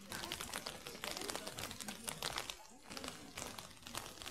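Irregular crackling and rustling close to the microphone while walking, like a jacket or hand rubbing against the phone.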